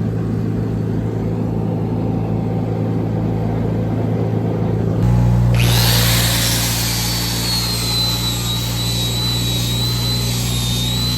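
An engine runs steadily throughout, and about halfway through an angle grinder starts up with a high whine that settles slightly lower in pitch and keeps running, grinding on the steel weld. The engine note gets louder as the grinder starts.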